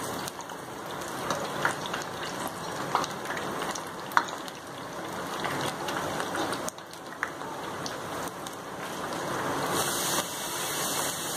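Medu vadas (urad dal fritters) deep-frying in hot oil: a steady sizzle with scattered small pops.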